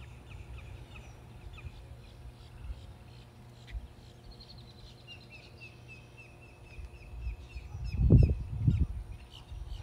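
Birdsong over a low steady background hum: a bird repeats short high chirps several times a second. Two loud low rumbles come near the end.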